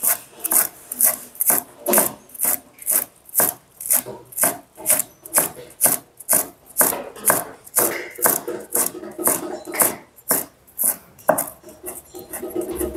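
A cleaver chopping green onion on a wooden cutting board: steady, even chops at about two a second, each a sharp knock of the blade on the board.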